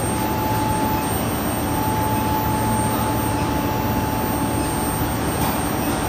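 Induction melting furnace and its power cabinet running at full power while melting copper: a steady rushing hum with a thin, steady high whine over it.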